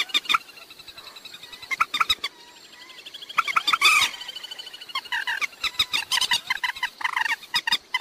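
Recorded calls of a common moorhen: bursts of quick, rippling notes that repeat with short pauses. The calls are loudest about four seconds in and come thickly through the last three seconds.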